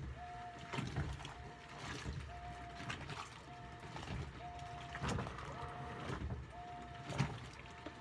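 GE Hydrowave top-load washer (GTAP1000MWW) agitating a load of towels in warm water: a short motor whine about once a second with each agitator stroke, over soft water sloshing. The machine runs quietly.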